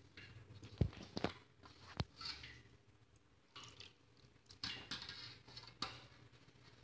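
Faint crumbly rustling and scraping of a hand rubbing ghee into maida flour against a steel plate. Three sharp clicks come in the first two seconds.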